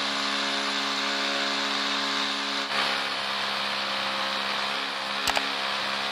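Rotary hammer drill running steadily with a 16 mm masonry bit, boring into a concrete ceiling. A sharp click is heard about five seconds in.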